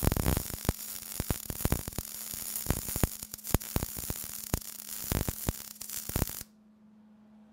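Wire-feed welder arc crackling and hissing with irregular sharp pops as a bead is laid where a square seat bar meets a round tube. It cuts off abruptly about six and a half seconds in, leaving a faint steady hum.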